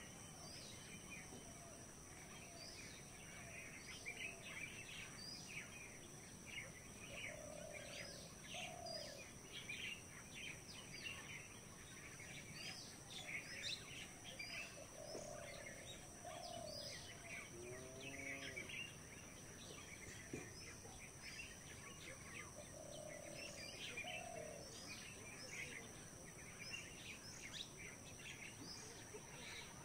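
A faint chorus of many birds chirping and calling. A lower two-note call comes back every seven or eight seconds, over a steady high-pitched whine.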